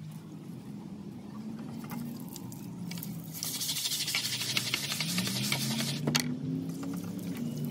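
Stiff plastic scrub brush scrubbing the wet, soapy ribbed concrete washboard of a laundry sink: a run of brisk, rapid strokes starting about three and a half seconds in and lasting about two seconds, then a single sharp knock.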